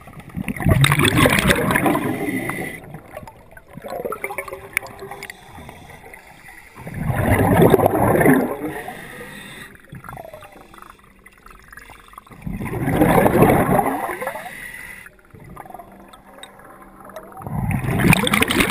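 Scuba diver breathing underwater through a regulator: four loud rushes of exhaled bubbles about five seconds apart, with quieter inhales between.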